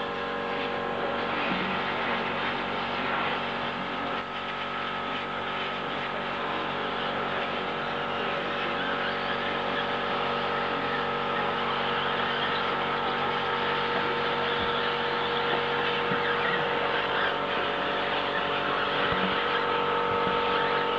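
A pack of 1/10-scale electric 2WD RC buggies racing on a dirt track: motors whining and tyres on dirt, with a steady electrical hum underneath.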